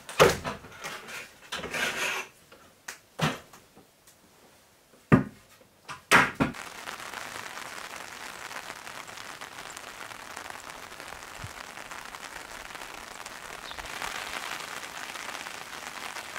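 Sharp knocks and cracks of wooden trim boards being pried and torn off an old log wall, several over the first six seconds. Then a steady hiss of rain falling.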